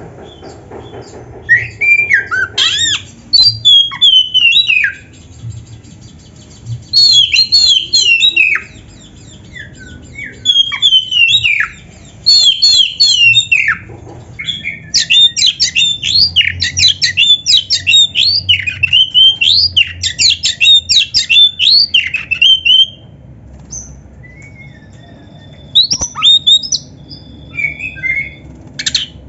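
Oriental magpie-robin (kacer) singing loud, varied song phrases of quick sliding notes in bursts separated by short pauses, with a long rapid run of notes in the middle.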